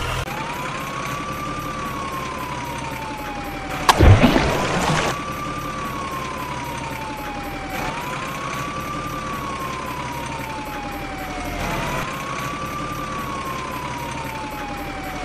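Siren wail, rising quickly and then falling slowly in a cycle about every four seconds. A sudden loud burst of rushing noise comes about four seconds in and lasts about a second.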